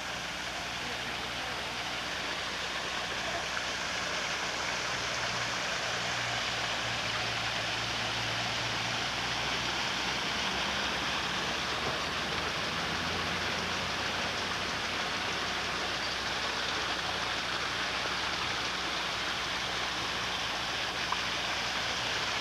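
Steady rushing of flowing water, as of a stream or small waterfall, growing a little louder over the first few seconds.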